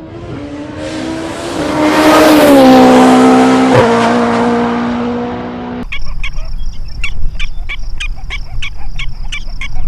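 Turbocharged Toyota 4A-GE four-cylinder of a Formula Atlantic race car running at high revs, swelling to a peak about two seconds in and dropping in pitch as it passes, then holding a steady note. It cuts off suddenly about six seconds in, followed by a steady high whine with regular ticks, two to three a second.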